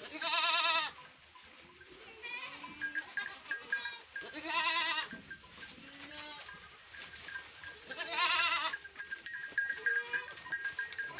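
Mother goats bleating: three loud, quavering bleats about four seconds apart, each close to a second long.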